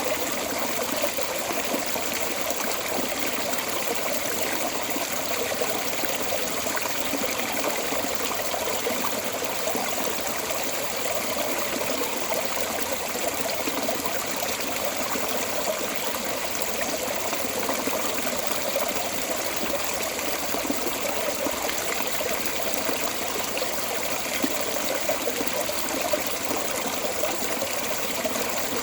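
Water pouring steadily out of a storm drain outlet in a continuous splashing, trickling flow.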